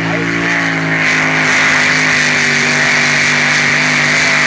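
Modified pulling tractor's engine at full throttle during a pull, holding a steady high pitch. About a second in it grows louder and harsher.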